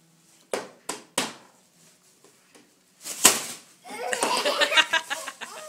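A bag crinkled in three quick snaps, then a louder rustle; about a second later a baby breaks into a run of quick belly laughs.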